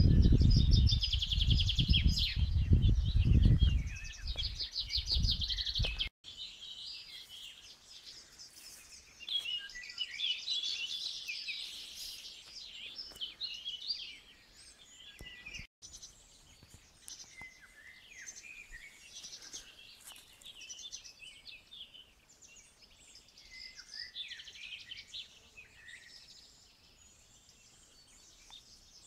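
Several songbirds singing in woodland, with varied phrases and fast trills. A low buffeting rumble of wind on the microphone covers the first six seconds, and the sound drops out briefly twice.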